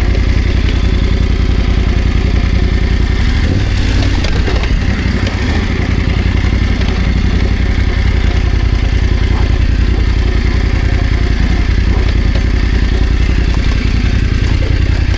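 BMW F900 GS's parallel-twin engine running at low revs under way, a steady low pulsing that eases briefly about five seconds in, with some clatter.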